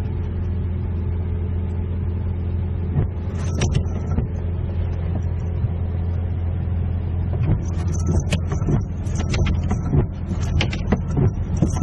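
A steady low drone like a running vehicle, with scattered clicks and knocks that become more frequent in the second half.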